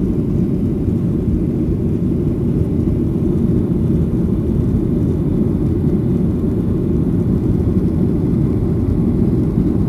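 Steady low rumble of an airliner's engines and rushing air heard inside the cabin as the plane climbs after takeoff.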